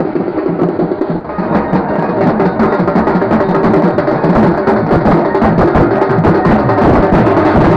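Loud music with heavy drumming, many drum strokes a second, dipping briefly about a second in and then coming back louder.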